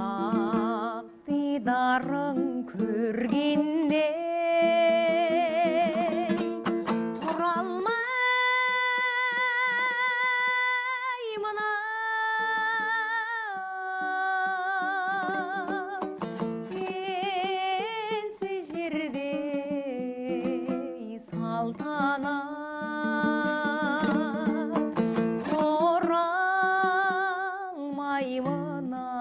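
A singer performing a song with strong vibrato and long held notes, accompanied by a plucked string instrument.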